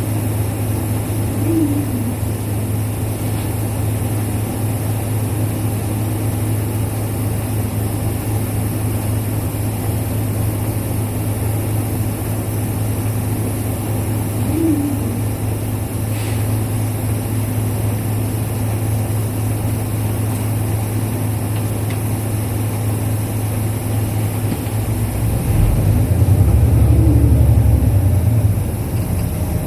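Isuzu Erga KL-LV834L1 city bus's diesel engine idling steadily while the bus stands at a stop, heard from inside the cabin. The low engine hum grows louder for about three seconds near the end, then settles back.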